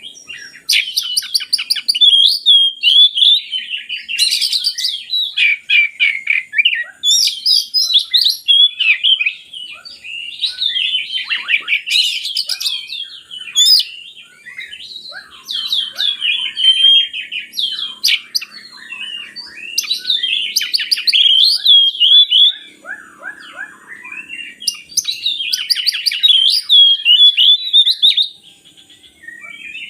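Oriental magpie-robin (kacer) singing a long, varied song of clear whistles, rapid trills and chatter, delivered in phrases with short pauses between them.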